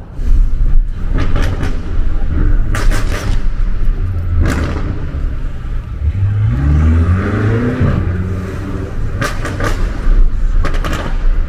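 BMW F90 M5 Competition's twin-turbo V8 through a Remus cat-back exhaust, heard from inside the car following it. It is a loud low rumble with one rev that climbs and falls back about six to eight seconds in, and several sharp cracks scattered through.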